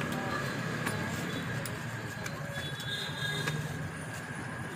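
Steady hiss and hum of a busy roadside food stall, with a thin constant whine, and a few light clicks of a metal spatula on a flat iron griddle as chapatis are turned.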